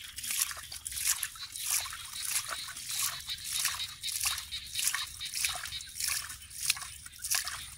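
Hands scooping damp sand out of a hole and flinging it aside, a gritty scrape and spatter about twice a second.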